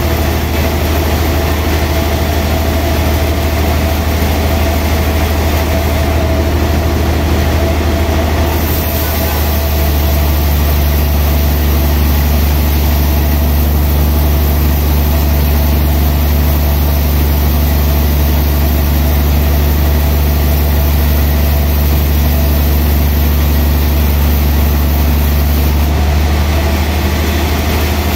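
Large band sawmill running with a steady, loud low hum as it saws a big log. From about ten seconds in until shortly before the end the hum grows louder and fuller, then eases back.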